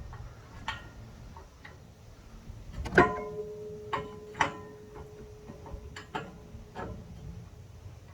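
Metal jack-mount hardware clinking and knocking against the roof rack as the bracket, bolts and washers are set in place. The loudest knock, about three seconds in, leaves a metallic ring that hangs for about three seconds.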